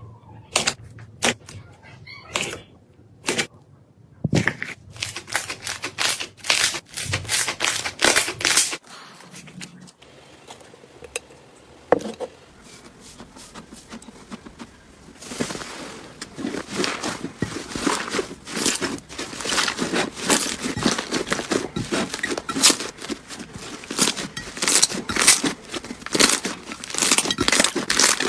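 Slime being squeezed and stretched by hand, giving sticky clicks and crackling pops. These come scattered at first, then dense and continuous from about halfway.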